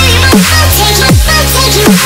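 Dubstep music with no vocals: heavy wobbling bass synths under steep downward pitch sweeps that repeat roughly every three-quarters of a second.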